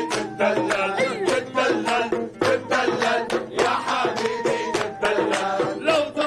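Arabic folk music played live: a hand frame drum and hand clapping keep a steady beat while men sing along, with an oud playing.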